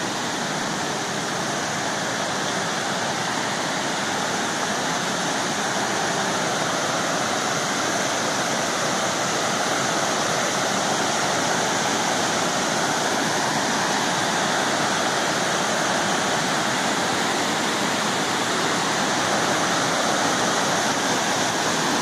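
Waterfall cascades rushing steadily over limestone ledges into a pool, growing slightly louder over time.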